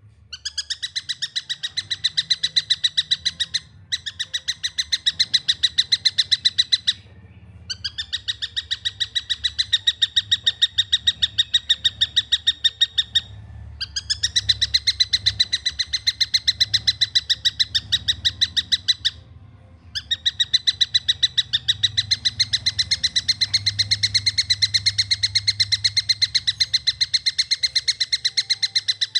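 Juvenile stork-billed kingfisher (tengkek buto) giving rapid, evenly repeated shrill calls, about five or six a second, in long runs broken by brief pauses three or four times. A faint low hum runs underneath.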